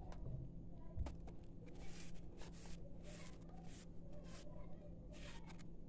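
A dry, crunchy chunk of sifted sand and cement being crumbled by hand over a steel bowl: a sharp click about a second in, then about six short gritty crunches as pieces break off and grit falls into the bowl.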